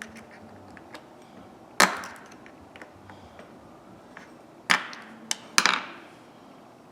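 Ratchet parts being handled on a workbench: three loud knocks, about two seconds in and twice more near the end, a smaller knock between them, and light clicks of small metal parts.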